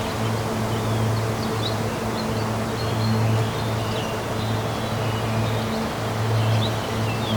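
Slow ambient music of low held notes over the steady rush of a waterfall, with many birds chirping high above.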